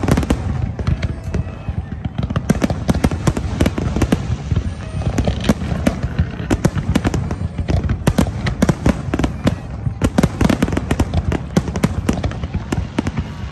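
Fireworks display at full barrage: shells bursting in a dense, continuous run of sharp bangs, several a second, with no pause.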